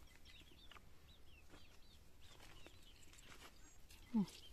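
Faint chirping and clucking of farmyard chickens and birds, with one short louder call falling in pitch about four seconds in.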